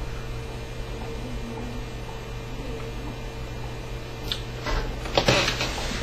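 Steady low background hum of room tone with a faint constant tone in it, broken by a short rustling noise about five seconds in.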